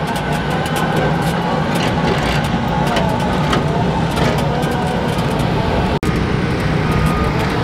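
Toro Revolution battery-powered stand-on mower driven fast: a steady whir from its electric drive and spinning blades, with a faint whine that wavers in pitch. The sound drops out for an instant about six seconds in.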